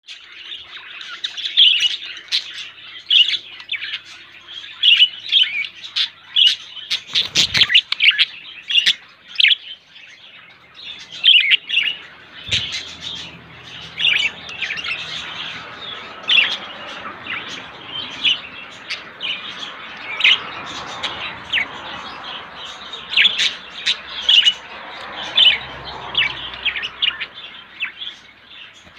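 Budgerigars chirping and chattering in a dense run of short, high calls, with two dull knocks about a quarter and nearly halfway through.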